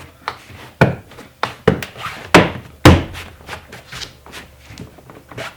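Plastic interior door trim panel being pressed onto the door, its retaining clips snapping into place as a series of sharp thunks, the loudest in the first three seconds, followed by lighter taps.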